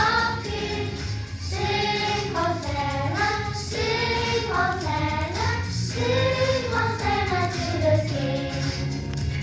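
Children's choir singing a Christian praise song, one melody line rising and falling, over a steady low instrumental accompaniment.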